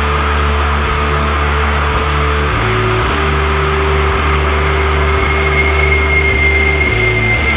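Heavy metal music: distorted guitars and bass holding low chords that change every second or so, with a high sustained note coming in about five seconds in.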